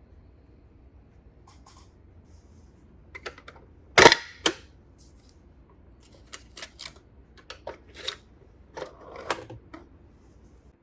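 Small plastic toy parts being handled: scattered clicks and taps, the loudest a sharp click about four seconds in, with a brief rustle near the end.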